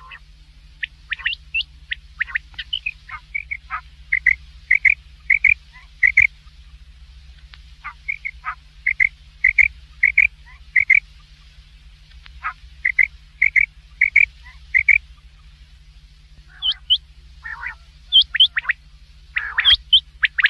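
Quail calling: runs of short, sharp notes, about two to three a second, several to a run with pauses between, over a low steady hum.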